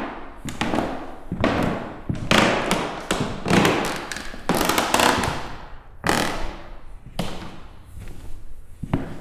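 Footsteps walking on an old wooden floor: each step lands with a thud and the boards creak under it.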